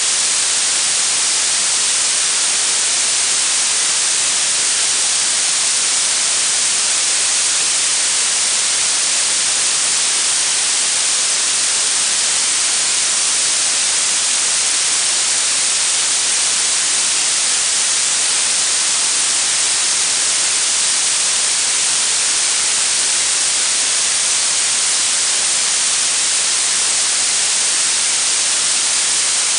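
Blue noise: a steady, unbroken hiss weighted toward the highest pitches, with very little low end.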